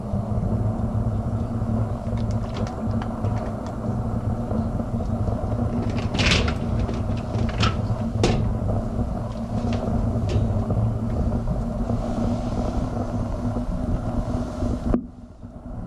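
Dishwasher running a cleaning cycle: a steady low hum, with a few sharp clicks and knocks around six to eight seconds in. The hum cuts off suddenly about a second before the end.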